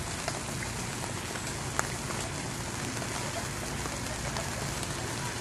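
Steady outdoor hiss with a few faint scattered ticks.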